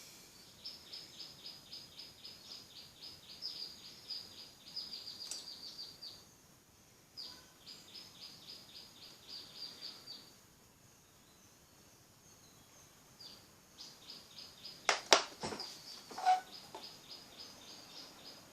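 A bird chirping in quick runs of short, high, falling notes, about five or six a second, pausing between runs. A few sharp clicks or knocks come about fifteen seconds in, louder than the chirping.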